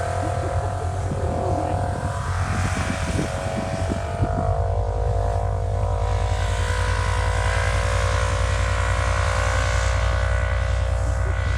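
Side-by-side UTV engine running steadily under throttle, its pitch rising a little in the first few seconds and then holding; wind buffets the microphone early on.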